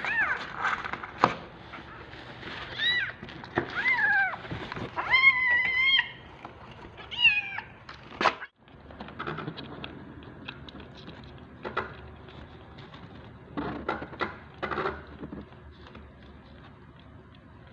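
Several young kittens meowing loudly and repeatedly, the hungry cries of kittens waiting for the bottle. About halfway through the calls stop, leaving quieter scattered clicks and a few short cries.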